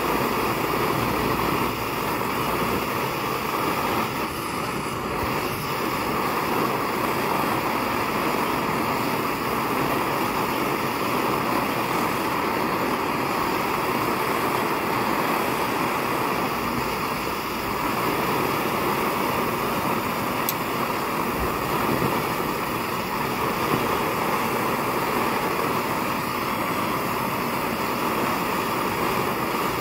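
Kerosene pressure stove burner, pumped up and burning: a steady, even rushing noise with no breaks, strongest in the middle range.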